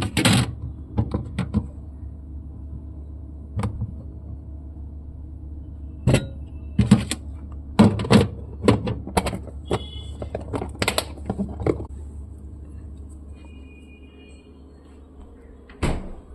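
Kitchen clatter: irregular knocks and clicks of utensils and cookware, bunched in short runs, over a steady low hum. A couple of brief high tones ring out about ten and thirteen seconds in.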